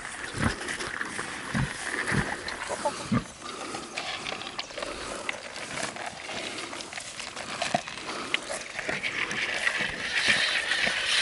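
Pig grunting and feeding at a trough, with many short smacking clicks, louder near the end.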